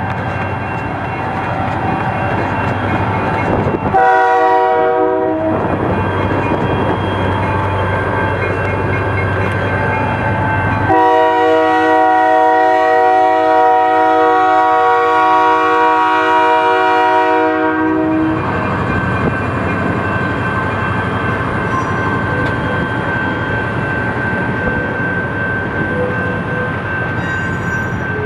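Diesel passenger train's locomotive air horn sounding a short blast about four seconds in, then a long blast of about seven seconds, over the steady rumble of the lead EMD F40PHR locomotive. Passenger coaches roll past near the end.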